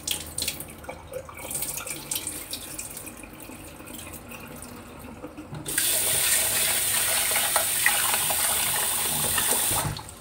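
Cloudy rinse water being poured off soaked mixed grain rice into a stainless steel sink, with irregular splashing. About six seconds in, the kitchen faucet comes on and runs steadily into the pot as the rice is stirred and rinsed, then shuts off suddenly near the end.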